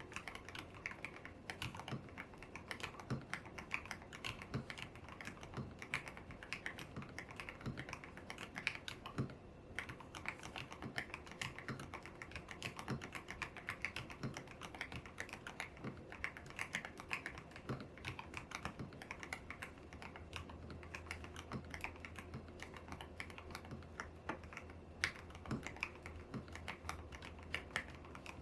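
Continuous fast typing on a YUNZII X75 Pro mechanical keyboard with lubed Kaith Jellyfish switches, a tape mod and milky keycaps: many keystrokes a second, with a brief pause about ten seconds in.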